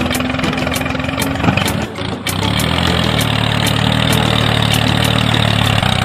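An engine idling steadily with a light, regular ticking over it; the sound shifts slightly about two seconds in.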